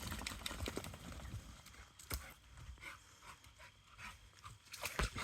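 American bully dog scrabbling and pawing about in the dirt: faint, irregular scuffs and pats, with a sharper knock about two seconds in and another near the end.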